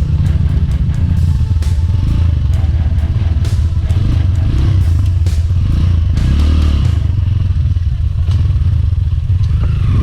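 Trail motorcycle engine running while riding over rough ground, its note swelling with throttle a few times, with scattered clattering knocks from the bike over the bumps.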